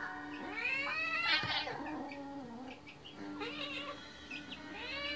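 Domestic cats caterwauling in a fight: long, drawn-out yowls that rise and fall in pitch. There is one long yowl about half a second in, a shorter one about three and a half seconds in, and another long one starting near the end.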